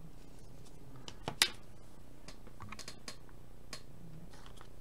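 Trading cards and a hard plastic card holder being handled, making a few short sharp clicks and taps. The loudest click comes about a second and a half in, with fainter ticks after it, over a steady low room hiss.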